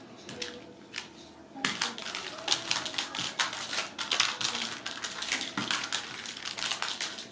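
Kittens at play with a wand toy: a rapid, irregular run of rustles and clicks that starts about a second and a half in, after a brief burst near the start.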